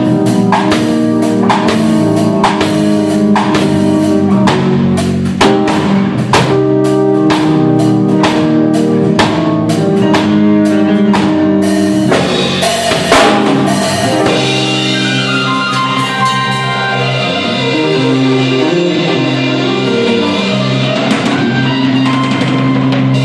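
Instrumental band of electric bass, keyboard and drum kit playing a song at a soundcheck: a steady drum beat with bass and keyboard chords, then the drums stop about halfway through and held keyboard and bass chords ring on to close the song.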